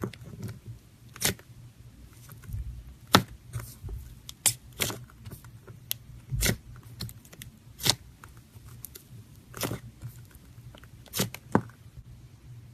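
Slime being squeezed and stretched by hand, giving irregular sticky pops and crackles, about a dozen sharp ones.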